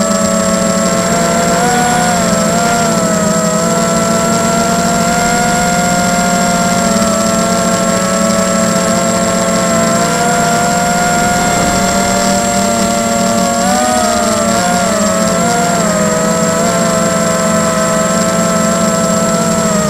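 Tarot 250 racing quadcopter's four electric motors and propellers whining in flight, several close pitches drifting up and down together as the throttle changes, wavering most about two-thirds of the way through.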